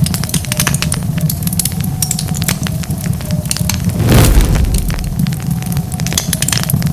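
Wood fire crackling: dense, irregular sharp pops and snaps over a steady low rumble, with one louder, fuller burst about four seconds in.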